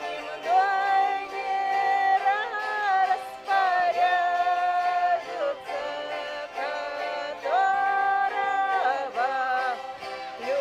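Gusli (Russian psaltery) music with a voice singing long held notes that slide from one pitch to the next.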